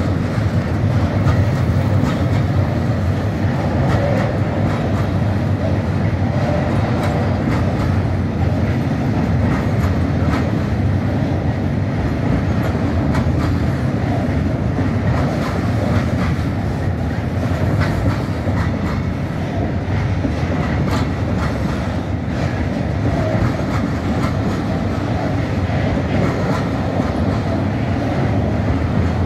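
Freight train of tank wagons rolling steadily past at close range, a continuous rumble of wheels on rail with occasional clacks as wheels pass over rail joints.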